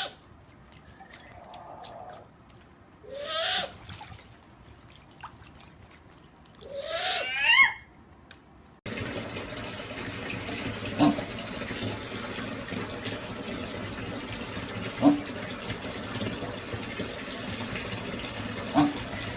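A bird gives loud rising calls twice, each about a second long. About nine seconds in, the sound cuts to steady running water, like a tap, with a few short squeaks over it.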